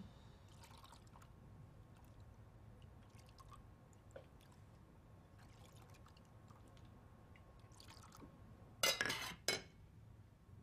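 Soup ladled from a saucepan into a small bowl: faint pouring and dripping of liquid. About nine seconds in, a few sharp clinks as a metal lid is set on the copper saucepan.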